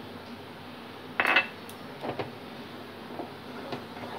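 Wooden spoon stirring thick, sticky mango jelly in a steel saucepan, with soft scraping and light knocks of wood against the pan. One louder clatter comes a little over a second in.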